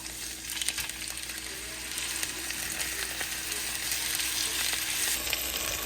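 Seasoned chicken frying in hot garlic olive oil in a skillet: a steady sizzle with fine crackling as the second side sears after being flipped.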